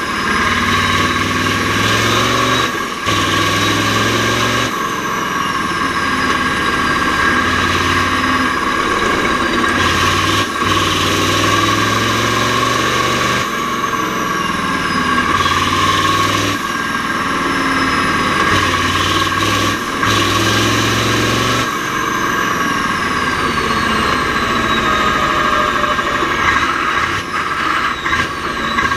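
Mack R-series V8 diesel truck engine running hard, its pitch breaking off and picking up again every few seconds as gears are changed on the Roadranger gearbox. A high whine falls in pitch at times.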